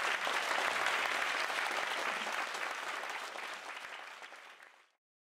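Audience applauding. The applause fades out and goes silent near the end.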